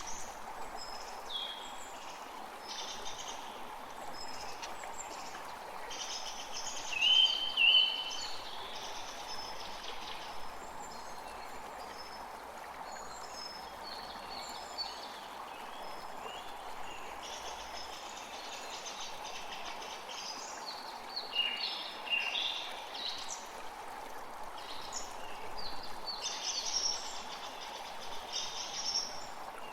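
A creek running steadily, with several songbirds chirping and singing over it; the loudest calls come about seven seconds in and again in the second half.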